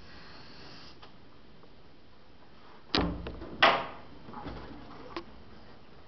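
Two knocks about two-thirds of a second apart, the second the louder, as a rubber balloon is bumped against a metal shelf stand and the floor, then a faint tap.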